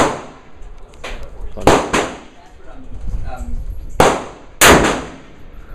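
Heavy handgun gunshots in an indoor shooting range: about six sharp reports, two of them only a quarter second apart, each with a brief echoing tail. The shooter's .454 magnum revolver is among them.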